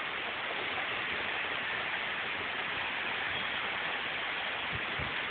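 Steady rushing noise of strong thunderstorm wind and rain, with a couple of brief low wind thumps on the microphone near the end.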